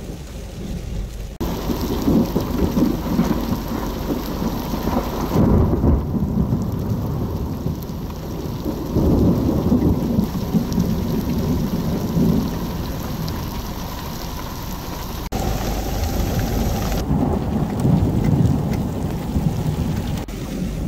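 Heavy rain pouring down, with low rolling rumbles of thunder that swell several times; the sound changes abruptly at several cuts between clips.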